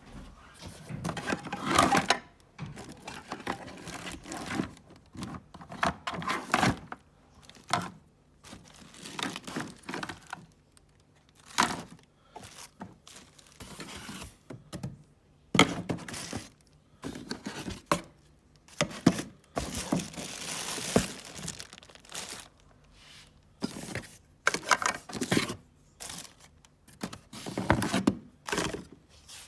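Irregular rustling and crinkling with short knocks, from plastic parts and packaging being handled, in bursts every second or two; no vacuum motor is running.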